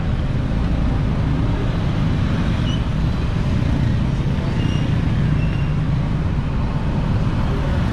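Steady low rumble of road traffic, the background noise of a busy city street market.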